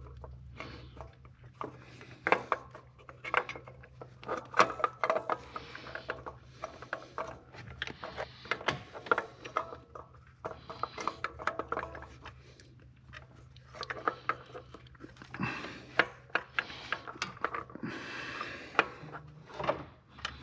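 Irregular clicks, taps and scraping of metal parts and hand tools as a new coolant thermostat is worked into its housing, with a faint steady hum underneath.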